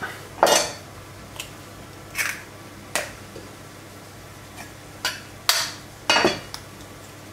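Eggs knocked against the rim of a stainless steel mixing bowl to crack them open: a series of short, sharp knocks and clinks.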